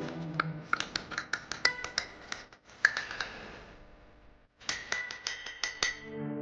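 A quick, irregular series of sharp clicks and light taps, each with a brief ring, pausing for a moment about four seconds in and then resuming.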